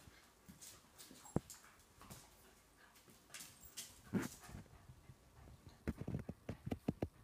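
A wire-haired dachshund puppy and a German Shorthaired Pointer play-fighting on a stone-flagged floor: scuffling, with paws and claws clicking and knocking on the flagstones, a couple of louder knocks, and a quick run of sharp knocks near the end.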